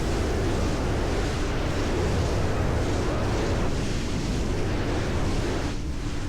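Speedboat running at speed, its engine noise and the rush of water along the hull mixed with heavy wind buffeting the microphone.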